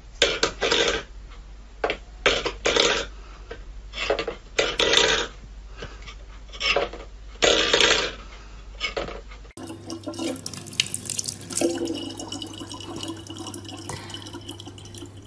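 A steel bowl scraping and clattering on a wooden floor as a cat paws at it, in a run of short bursts. About two-thirds of the way in this gives way to a thin stream of tap water running into a plastic bottle, with a low steady hum.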